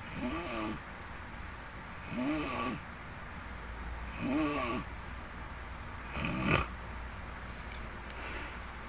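A man snoring in his sleep: four snores about two seconds apart, each a pitched tone that rises and then falls. The fourth, about six seconds in, is the loudest and harsher, and a fainter breath follows near the end.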